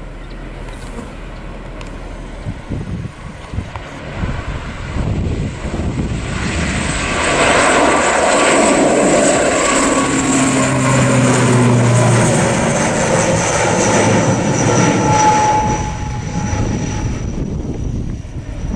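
ATR 72-600's twin turboprop engines and propellers at takeoff power, a steady propeller drone that builds about a third of the way in and is loudest in the middle as the aircraft climbs out past, then eases slightly near the end.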